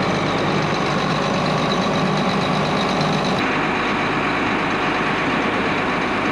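A vehicle engine running steadily, its sound changing abruptly about three and a half seconds in.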